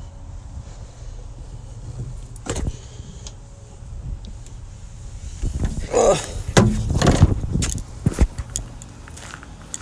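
A hinged metal panel on heavy equipment creaking open with clanks and knocks, amid footsteps, loudest about six to seven seconds in.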